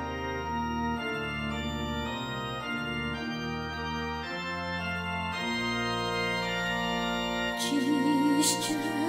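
Organ music: sustained organ chords over a slowly stepping bass line, a song's instrumental introduction. Near the end a higher wavering line enters over the chords.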